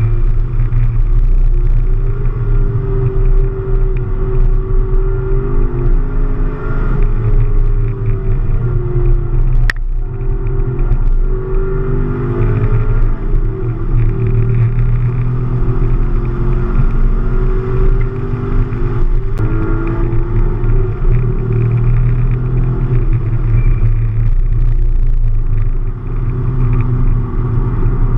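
Chevrolet Camaro SS's V8 engine at speed on track, heard from inside the cabin, its revs repeatedly rising and falling with the throttle.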